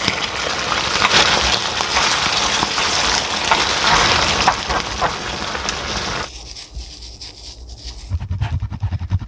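Spaghetti in tomato sauce sizzling in a stainless steel pan as it is stirred and tossed, with scattered clicks. The sizzle cuts off about six seconds in, and a low pulsing beat starts near the end.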